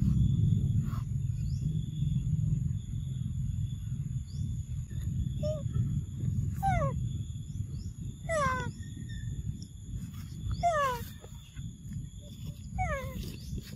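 Young macaque giving about five short squeals that each slide down in pitch, starting about five seconds in, over a steady low rumble.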